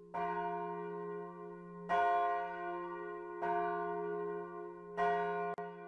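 Bell struck four times, about a second and a half apart, each stroke ringing on into the next over a steady low hum. A short click comes near the end.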